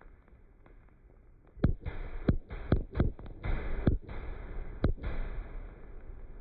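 Fireworks going off: about seven sharp bangs in quick, irregular succession over some three seconds, with a rushing crackle between them.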